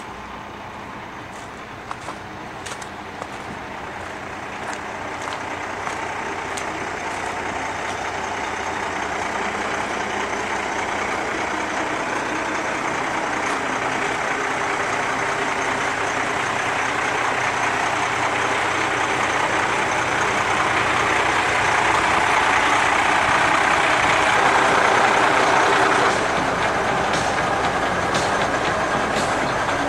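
Cummins 8.3 diesel engine of a 1995 Freightliner FL80 truck idling steadily, growing louder over the first twenty seconds or so, then dropping suddenly a few seconds before the end.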